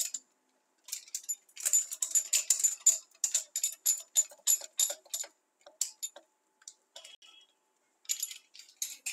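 A pizza cutter wheel rolls through a baked, cheese-topped savoury bake on baking paper, making a rapid run of crisp ticks and crackles. The ticks thin out about two thirds of the way through and pick up again near the end.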